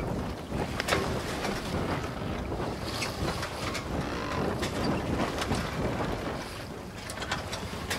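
Wind buffeting the microphone over a steady rush of sea water, with a few sharp knocks scattered through it.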